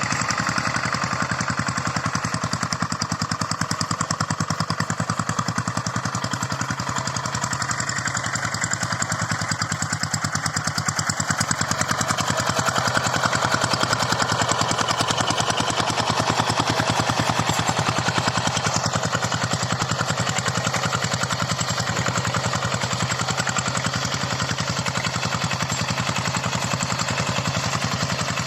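Hand tractor's single-cylinder diesel engine running steadily, with a rapid, even firing beat.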